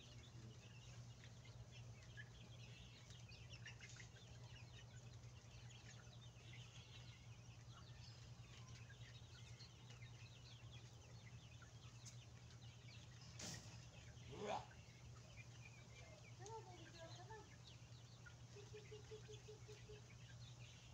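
Small flock of young hens peeping and clucking faintly at the coop, with many soft chirps throughout. About two-thirds of the way in there is a brief knock, then a louder call, and near the end a quick run of about six short clucks.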